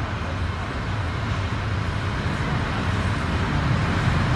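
Fiat ALn 668 diesel railcar drawing into a station, its diesel engines running with a deep, steady rumble that grows gradually louder as it comes closer.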